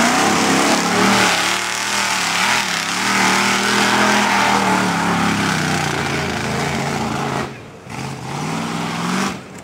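Mud-bogging 4x4's engine revving hard at high rpm as it churns through deep mud, with mud spraying off the tyres. The throttle comes off sharply about seven and a half seconds in, opens again, and drops once more near the end.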